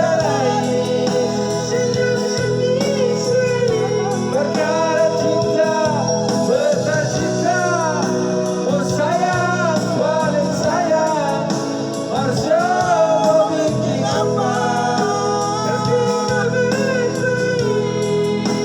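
A song playing: a wavering sung melody over a continuous backing accompaniment.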